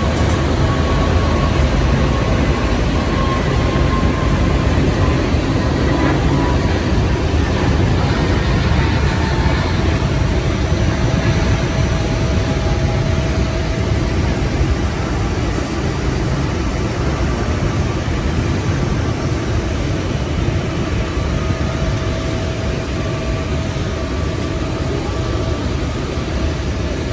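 Jet engines of a departing Airbus A321neo airliner heard from a distance on its takeoff and climb: a steady loud rumble with a faint whine that slowly drops in pitch.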